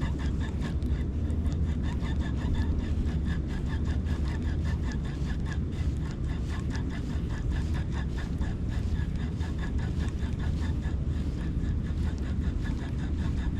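Wind buffeting the microphone, a steady low rumble, with a faint regular ticking about four times a second over it.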